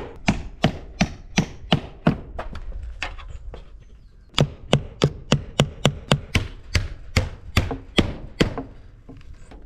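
Hammer driving nails into a wooden skylight frame: a rapid run of sharp blows, about three a second, a brief lighter patch, then a second run that stops shortly before the end.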